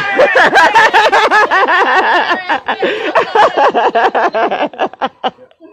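Loud, high-pitched laughter in rapid short peals, dying away about five seconds in.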